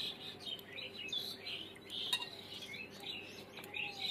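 Small birds chirping and twittering, with a few light clinks as cut aubergine pieces are set down on a steel plate.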